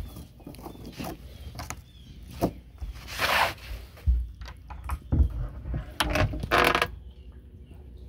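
Footsteps on a boat's fibreglass deck: several dull thumps and knocks at irregular intervals, with two longer rustling scrapes in the middle.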